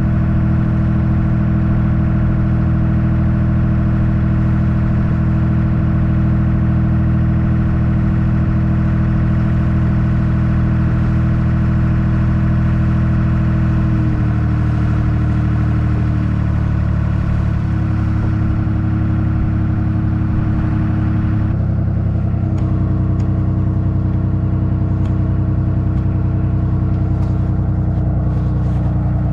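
Ferry boat's engine running steadily, then throttled back in steps a little after halfway and again later, its pitch dropping each time.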